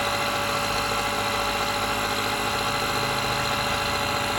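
Small portable air compressor built into a CAT jump-starter power station, running steadily at a constant pitch as it pumps up a low car tire.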